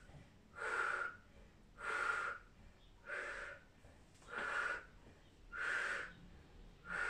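A woman breathing out hard with each standing leg kickback: six short, breathy exhalations in a steady rhythm, about one every 1.2 seconds.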